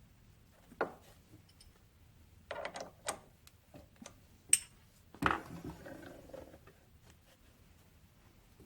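Metal tools and small engine parts being handled on a workbench: a few scattered clicks and clinks, with one sharp metallic clink about halfway through and a knock followed by a short rattle just after it.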